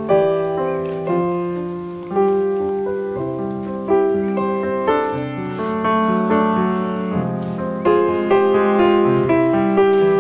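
Background piano music: a calm tune of struck chords, each fading before the next.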